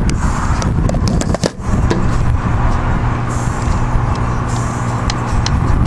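A few sharp knocks and scrapes in the first second and a half as the camera is handled and set down, over a steady, loud low rumble.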